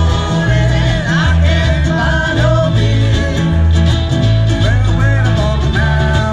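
Ukulele band playing a song live, with strummed ukuleles over a stepping bass line and a melody line above.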